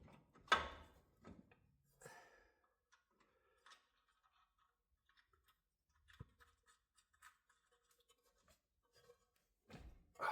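Faint scattered clicks and taps of metal parts being handled while a tie rod end is fitted into a steering knuckle, with one sharper knock about half a second in.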